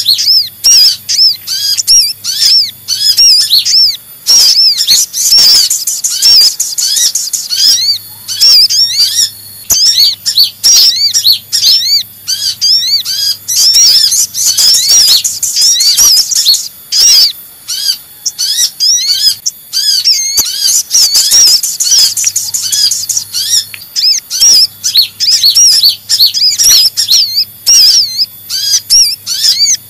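Loud, agitated chattering of sunbirds played as a bird-lure recording: kolibri ninja sunbird calls combined with sogok ontong sunbird calls. A dense, unbroken run of short, high, arched notes comes several a second, with sharp clicks in between.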